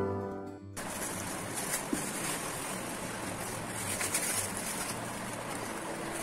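Piano music cuts off within the first second, then a steady rustling and crinkling with a few light knocks: the soundbar's plastic wrapping and foam end caps being handled as it is lifted out of its cardboard box.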